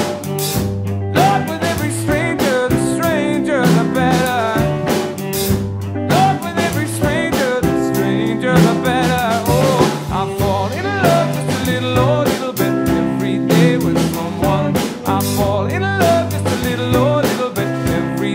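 Live band music: strummed guitar and a drum kit keeping the beat, with a male voice singing long, wavering notes without clear words.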